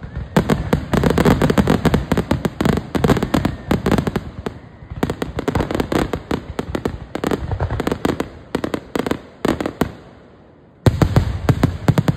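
Finale of an aerial fireworks display: a rapid, dense barrage of shell bursts and crackling reports, many per second. The barrage dies down briefly about ten seconds in, then a loud fresh volley breaks out near the end.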